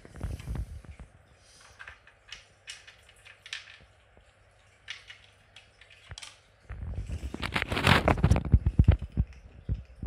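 A kitten pawing at a plastic treat-puzzle feeder, making light, scattered plastic clicks and rattles. About seven seconds in comes a louder stretch of dense clattering and rubbing that lasts nearly three seconds.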